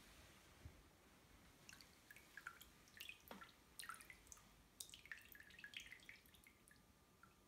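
A faint soft slosh of water as a foot moves in a basin, then scattered faint drips and plinks as water runs off the lifted wet foot back into the basin.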